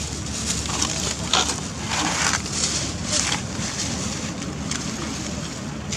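Long-tailed macaque biting and chewing a piece of fruit: several short, crisp crunches in the first three seconds or so, over a steady hiss.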